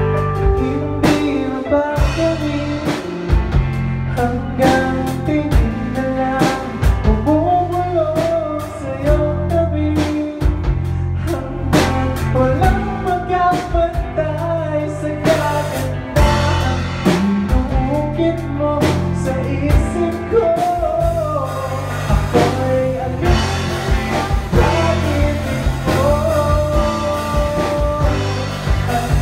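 A live band playing: electric bass and a drum kit keeping a steady beat, with a wavering melody line on top.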